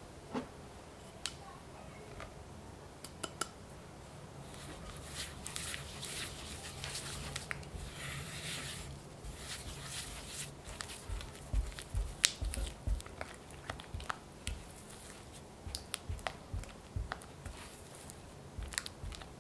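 Red silicone spatula working soft cream cheese in a glass bowl, mixing powdered sugar into it for frosting: soft squishing and scraping, with many light clicks and taps of the spatula against the glass.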